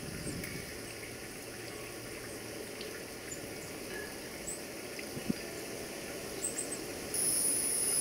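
Outdoor background hiss with a few faint, short high chirps. About seven seconds in, a steady high-pitched buzz starts suddenly and becomes the loudest sound.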